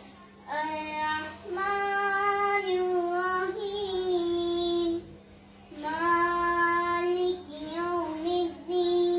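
A young girl chanting Quranic recitation in a melodic voice, holding long drawn-out notes in phrases broken by short pauses near the start and about five seconds in, over a steady low hum.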